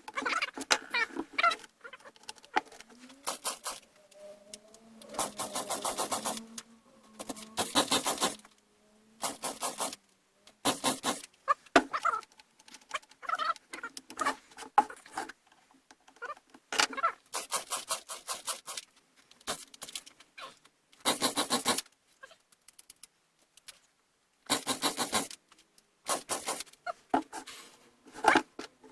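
Partner 510 two-stroke chainsaw being pull-started over and over: each yank of the recoil starter gives a short rattling whirr of the rope and the engine turning over, and the engine never catches. The owner puts the no-start down to a carburetor that won't draw fuel and needs new gaskets.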